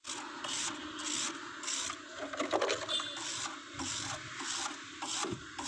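Repeated rubbing strokes, about two a second, with a few sharper scrapes in the middle.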